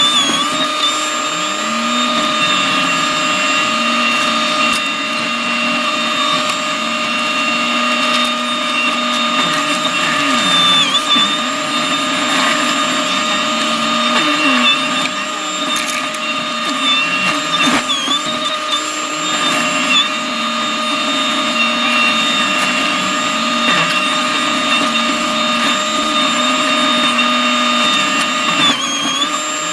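New Holland C327 skid steer running a McLaren RM60 forestry mulching head: a steady high whine over a wavering engine note, the whine dipping briefly in pitch a few times.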